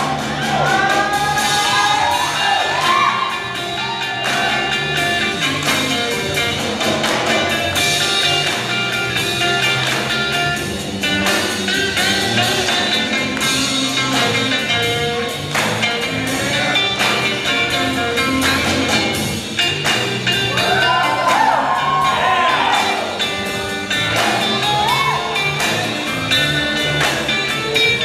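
Blues song with a singer and band playing continuously, with gliding vocal or guitar lines near the start and again about three-quarters of the way through.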